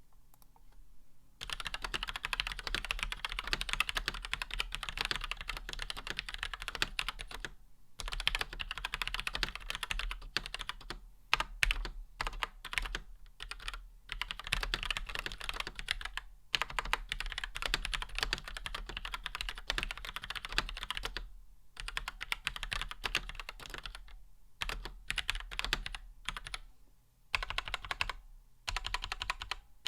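Steady fast typing on a custom mechanical keyboard: Gateron Yellow linear switches with TX films on a plateless PCB in a Cherry G81-1800 case, with thick beige doubleshot keycaps. The typing starts about a second and a half in and runs in bursts with a few brief pauses.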